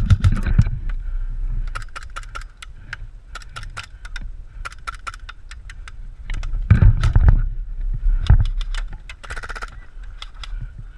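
Airsoft guns firing: a run of sharp cracks at uneven spacing, with a rapid burst of shots about nine seconds in. Heavy low rumbling on the microphone comes near the start and again about seven seconds in.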